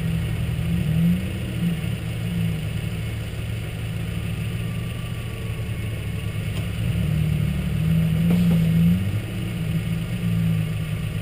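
Off-road truck engine running, heard from the hood, its pitch rising and falling a little with light throttle; it gets louder about eight seconds in.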